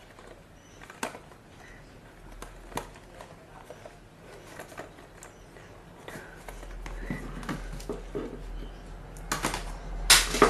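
Packaging being handled while unboxing: scattered light clicks and taps, then two louder rustles near the end.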